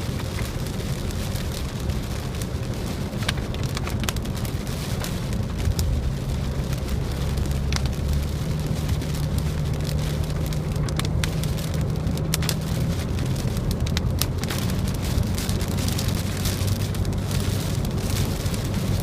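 Car cabin while driving in rain: a steady low drone of engine and tyres, with rain on the car and scattered sharp taps of drops striking the windshield.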